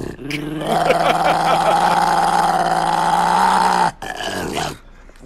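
A dog howling in one long, loud howl of about three seconds, its pitch wavering, with a steady low tone under it; a shorter sound follows near the end.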